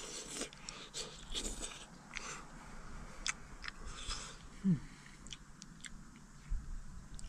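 A person eating with chopsticks from a frying pan, chewing and slurping, with a few sharp clicks scattered through. About two-thirds of the way in comes one brief low sound that falls in pitch.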